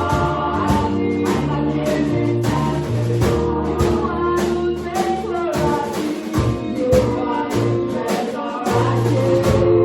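Church choir singing a gospel song with live band accompaniment: held sung notes over moving bass notes, with drums and tambourine keeping a steady beat of about two hits a second.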